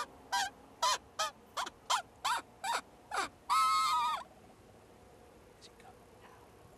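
Coyote yipping: a quick run of about eight short yips, each sliding down in pitch, then a longer wavering howl that stops a little over four seconds in.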